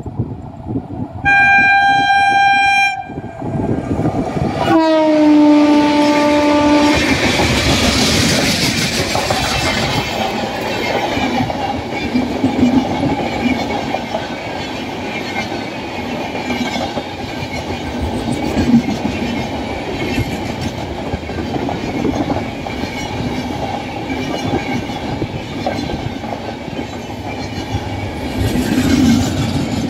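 An Indian Railways locomotive sounds its horn twice: a short high note, then a lower note that sags slightly in pitch. The train then passes, loud, with a steady rattle of wheels on the rails.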